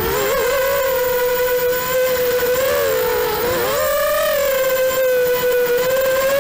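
Racing quadcopter's Emax 2204 2300 kV brushless motors spinning 5045 three-blade props, a steady whine heard close up from the onboard camera. The pitch holds mostly level with quick dips and rises as the throttle changes, dropping at the start and again about three and a half seconds in, then climbing.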